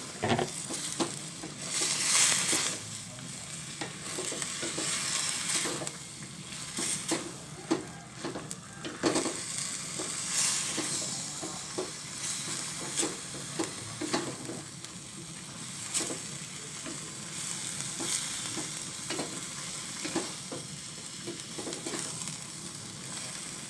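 Wooden spatula stirring and scraping banana blossom and melinjo leaves around a stainless steel pan, with irregular scrapes and knocks over a steady sizzle from the boiling coconut-milk sauce.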